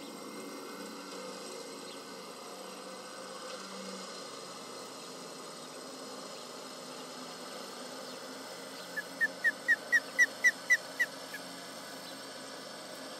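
Osprey giving a fast series of about ten sharp, whistled alarm calls, about four a second, lasting some two seconds starting about nine seconds in. Underneath is the steady low drone of a tractor engine running.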